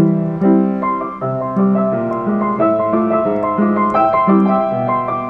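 Upright piano played with both hands: a tune over chords, with the notes changing a few times a second.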